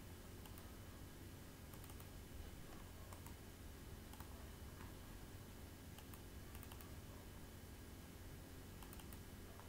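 Faint, sharp computer mouse and keyboard clicks, scattered and some in quick pairs, over a low steady electrical hum.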